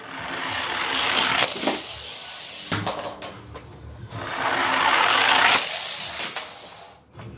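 Toy cars rolling down a long tube: a rushing, rattling noise that swells twice, with sharp clicks as they hit and roll across the laminate floor.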